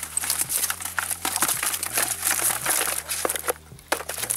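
Mesh keepnet rustling as it is shaken out over a plastic bucket, with bream flapping and slapping against the bucket: a dense run of crackles and taps that thins out about three and a half seconds in.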